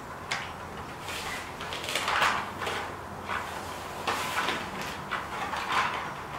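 Chicken wire being slid under the wooden pickets of a door frame, the mesh rasping against the wood and concrete floor in a series of short, irregular scrapes.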